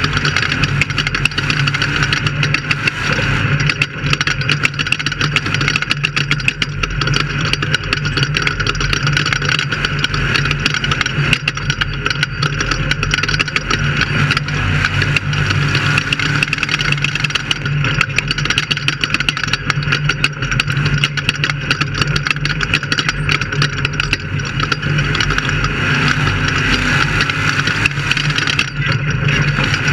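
Off-road race vehicle's engine running steadily at speed, a loud continuous drone with no let-up.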